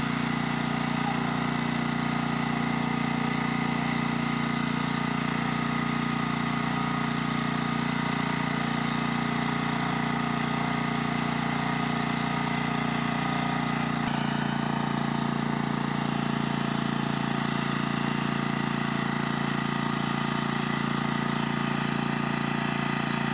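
Small petrol engine of a portable irrigation water pump running steadily, pumping water through its hoses. Its note shifts slightly about two-thirds of the way through.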